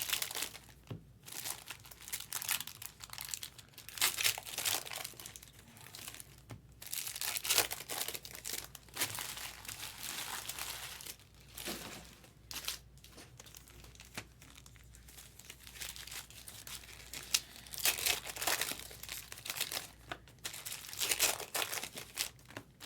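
Foil trading-card pack wrappers crinkling and tearing as packs are handled and opened, in irregular bursts of crackle.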